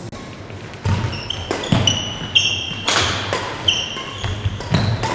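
Badminton rally: sharp racket strikes on the shuttlecock every second or so, with court shoes squeaking and feet thudding on the court floor. It starts about a second in.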